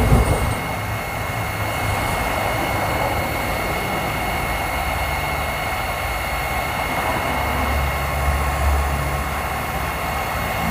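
Heat gun running steadily, blowing hot air up under a tin of PVC solvent cement to melt the thickened glue back to a liquid. Its fan gives a steady rush with a thin, constant high whine over it.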